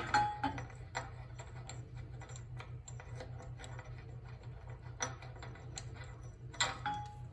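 Scattered light metallic clicks and clinks of metal parts being taken off and handled, over a steady low hum.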